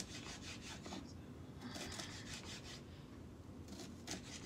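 Knife slicing a green bell pepper on a cutting board: three runs of quick, crisp cuts with short pauses between them.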